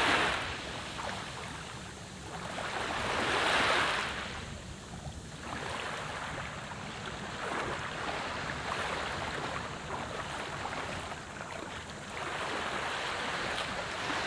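Sea waves washing onto a sandy beach, swelling twice in the first few seconds and then a steadier surf hiss, with wind rumbling on the microphone.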